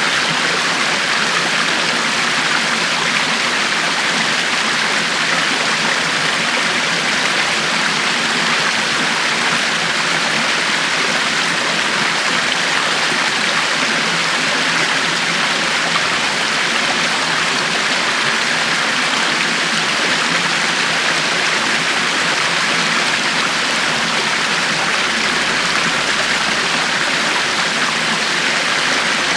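River water flowing steadily over rocks, a constant rushing and babbling without any change.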